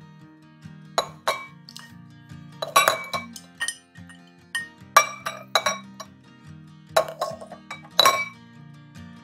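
Eggs set one at a time into a ceramic bowl on a kitchen scale, giving a series of sharp clinks in small groups every second or two. Background music plays underneath.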